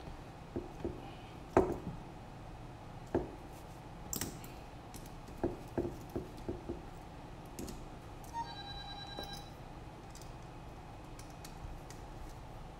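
Handling noise from a racing-quadcopter frame and small tools being turned and set down on a silicone work mat: scattered clicks and knocks, the loudest about one and a half seconds in. A brief pitched tone sounds about eight seconds in.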